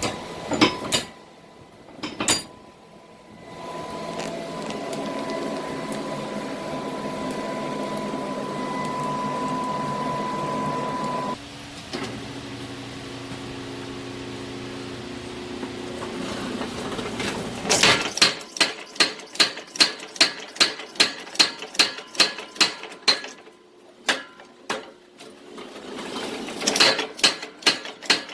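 A steady machine drone for the first part, then hammer blows on hot steel at the anvil, about two strikes a second, with a short pause before they resume, as a 5160 spring-steel vise spring is forged.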